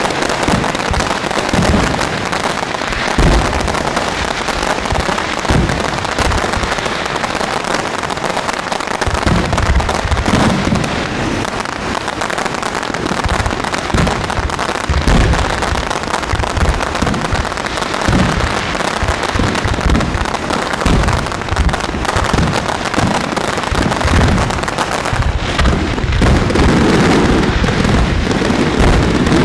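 Aerial fireworks display: dense, continuous crackling with many deep booms from shells bursting, growing louder near the end.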